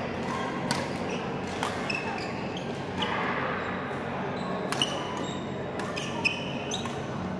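Badminton rally: sharp racket strikes on the shuttlecock every second or two, the loudest two near the middle and towards the end, with short high squeaks of shoes on the court mat, echoing in a large hall.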